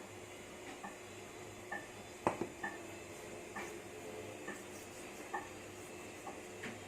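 Light, scattered clicks and taps of kitchen utensils and dishes being handled while seasoning fish, with one sharper knock about two seconds in.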